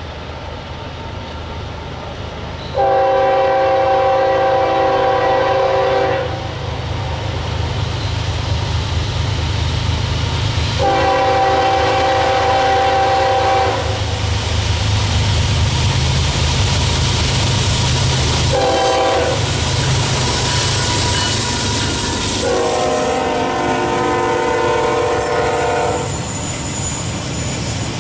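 Locomotive air horn blowing the long, long, short, long crossing signal, each blast a chord of several notes, warning of the train's approach to a grade crossing. Underneath is the steady rumble and clickety-clack of the passing train.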